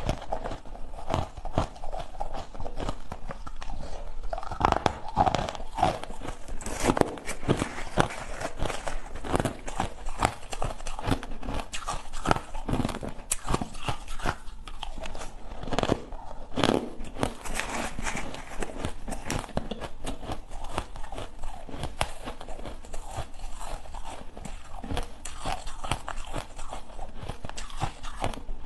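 Ice being bitten and chewed, a dense run of irregular crunches and cracks.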